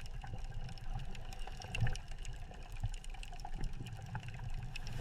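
Muffled underwater ambience: a steady low rumble with small scattered clicks and ticks.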